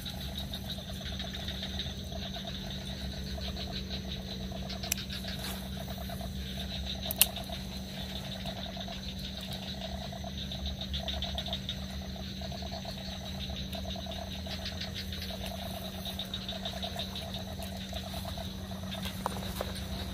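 Frogs calling in chorus: repeated trains of rapid pulsed croaks, with a higher fast pulsing chirr above them. A single sharp click about seven seconds in.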